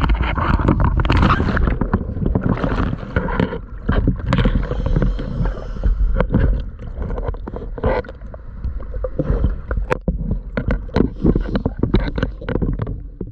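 Diver's splash entry into the sea, then rushing, gurgling water and bubbles as the camera goes under, full of small pops and knocks against a steady low rumble. The splash and bubbling are loudest in the first couple of seconds.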